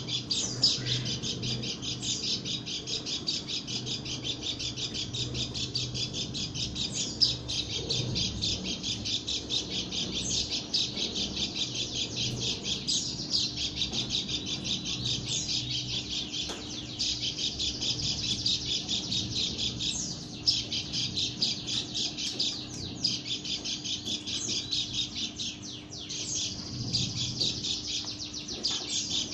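Lombok white-eye (pleci) singing a long, unbroken stream of rapid high chirps and trills, called a strange song by the keeper. A faint steady hum lies underneath.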